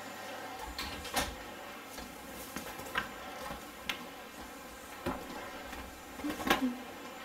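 About five separate knocks and clicks, spaced roughly a second or two apart, over a steady low hiss. The last one, near the end, is the loudest.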